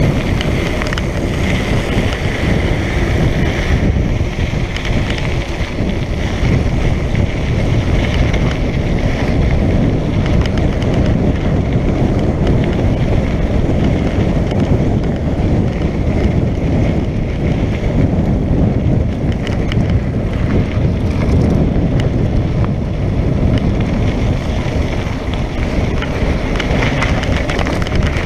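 Wind buffeting the microphone over the steady crunch and rattle of a mountain bike rolling fast down a loose sandy dirt track.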